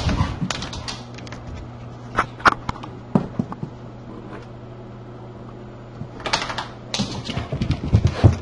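Scattered clicks and knocks that thicken into a rapid clatter near the end, as bull terriers scrabble with their paws and claws against a wooden baby gate, over a steady low hum.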